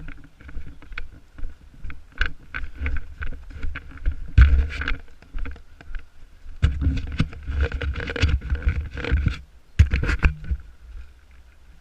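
Footsteps and rustling through forest undergrowth close to the microphone, with irregular knocks and scrapes in clusters, loudest about four and a half seconds in and again from about six and a half to nine and a half seconds.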